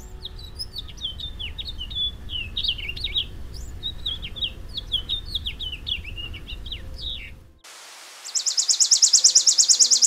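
A house finch sings its warbled song, a long run of quick, varied notes too fast to count, which stops about seven and a half seconds in. A second later a chipping sparrow's trill follows: a fast, even string of identical dry notes, louder than the finch.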